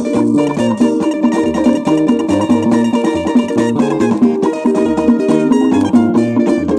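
Nigerian highlife band music from a 1979 vinyl LP: several plucked guitar lines picking short repeated figures over a stepping bass line and a steady beat.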